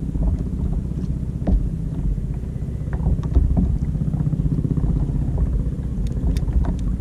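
Steady low rumble of wind buffeting the microphone over a kayak on open sea, with scattered faint clicks.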